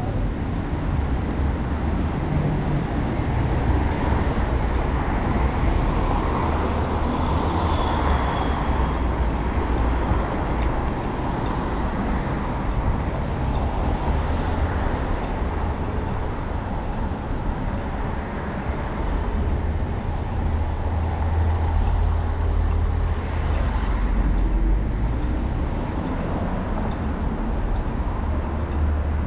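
City street traffic noise: cars passing on the road, a steady wash of road noise over a constant deep rumble.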